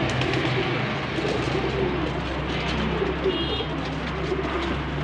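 A flock of domestic pigeons cooing together in a loft, many overlapping coos, over a steady low hum.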